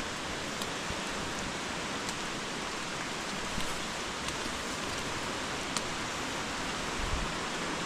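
Steady hiss of running water in an irrigation channel beside the path, with a few faint clicks.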